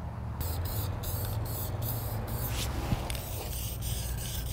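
Aerosol can of VHT paint spraying in short bursts: a hiss that starts about half a second in and breaks off briefly again and again, over a low steady hum.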